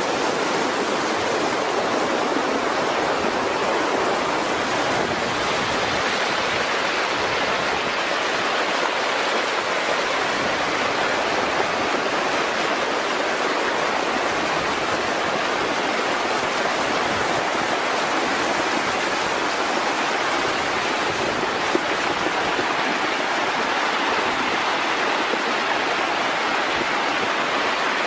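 Fast-flowing floodwater rushing steadily, a dense unbroken wash of water noise.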